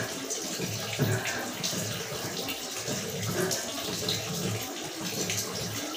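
Steady rush of running water, like a tap running, with faint voices underneath.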